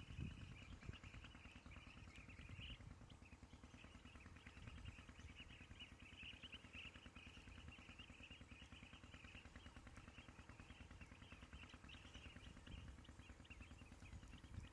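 Faint, continuous high twittering of birds over a low steady rumble.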